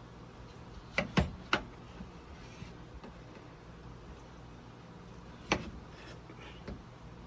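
A kitchen knife cutting a potato on a cutting board: three quick sharp knocks about a second in and another about five and a half seconds in, over a steady low hum.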